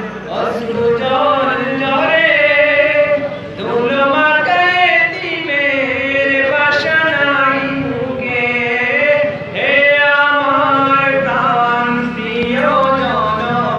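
A young man singing a Bengali patriotic song solo into a microphone, with no instruments heard, in long held phrases with wavering pitch.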